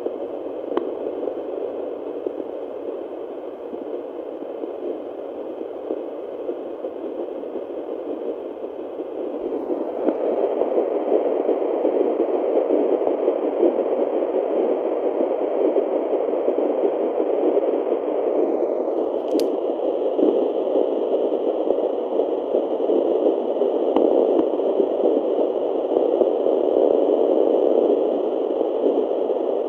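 Fetal Doppler heartbeat monitor's loudspeaker giving a steady hiss with crackle and scraping as it searches for an early fetal heartbeat. The hiss grows louder about ten seconds in, and there is a single click about two-thirds of the way through.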